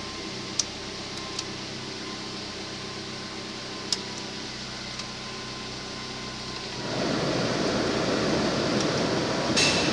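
Rover 25 1.4 K-series four-cylinder engine idling steadily, with a few sharp clicks. About seven seconds in, a louder steady rushing noise comes in and holds to the end.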